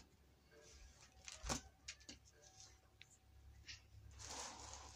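Near silence with faint handling noises: a few soft clicks and taps, the loudest about a second and a half in, and a soft rustle near the end.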